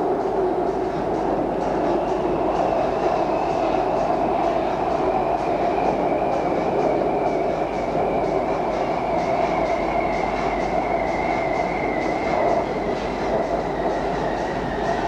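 Bangkok BTS SkyTrain running along the track, heard from inside the car: a steady rumble and rush of wheels on rail with a high whine that slowly falls in pitch.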